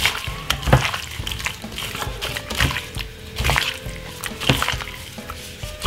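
Seasoned raw chicken pieces squishing and slapping as gloved hands rub and toss them in a glass bowl, in irregular strokes about once a second, over faint background music.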